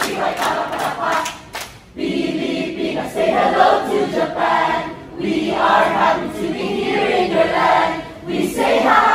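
A large group of young people chanting a cheer in unison, opening with short clipped shouts of spelled-out letters ("P-Y-P-Y"), then singing lines together such as "Pilipinas, say hello to Japan" and "We say hi by Mabuhay", with short breaks between lines.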